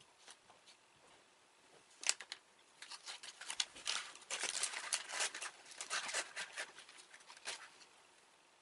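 Plastic candy packaging crinkling and rustling in dense bursts of crackles, starting about two seconds in and dying away near the end.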